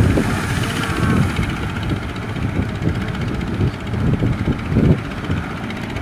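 Strong wind buffeting the microphone in irregular low gusts.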